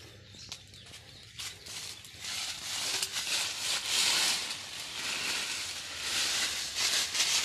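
Dry fallen leaves crackling and rustling as a small child wades and scuffles through a pile of them, building up about a second and a half in and loudest in the middle and again near the end.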